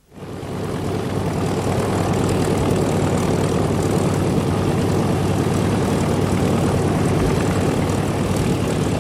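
Piston engine of a P-51D Mustang fighter, a Packard Merlin V-12, running steadily with its propeller turning. The sound fades up quickly in the first second, then holds level.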